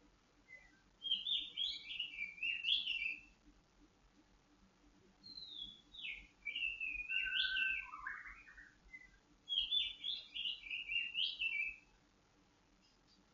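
White-rumped shama (murai batu) singing three long phrases of quick, varied notes that slide up and down, with a second or two of quiet between phrases.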